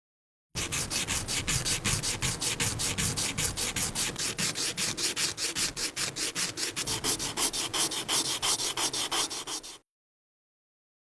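Rapid back-and-forth rubbing strokes on a surface, about six or seven a second. They start about half a second in and stop abruptly near the end.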